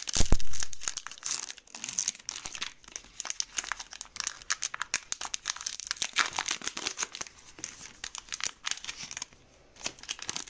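Foil wrapper of a trading card pack crinkling and tearing as it is pulled open by hand, a stubborn pack that does not open cleanly. A dull thump just after the start is the loudest moment, and the crinkling pauses briefly near the end.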